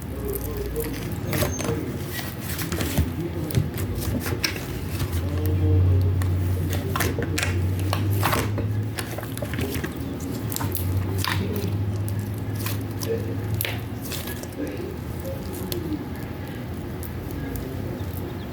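Butter slime squished and stretched by hand, giving many short sticky clicks and pops. A steady low hum runs through the middle stretch.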